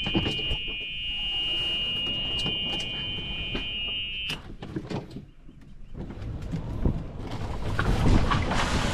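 Golf cart's reverse warning buzzer sounding a steady high tone for about four seconds, then cutting off. After a lull, the cart's rumble of rolling and driving rises near the end.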